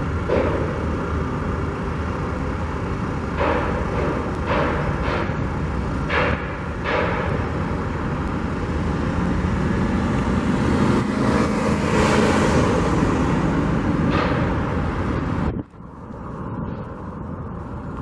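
Steady din of traffic and machinery around a construction site, with a few sharp knocks about three to seven seconds in. It swells louder around ten to thirteen seconds, then drops off abruptly near the end.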